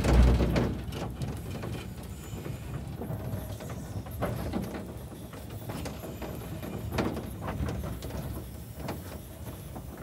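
Cab of a narrow-gauge steam locomotive on the move: uneven mechanical clanks and knocks from the engine and footplate, with a heavy low thump right at the start.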